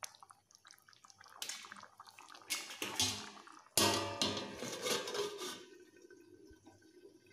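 Perforated stainless-steel plate scraping and clattering as it is set over a kadai of simmering curry as a lid, in two stretches between about one and a half and five and a half seconds in, the second starting with a sudden clatter.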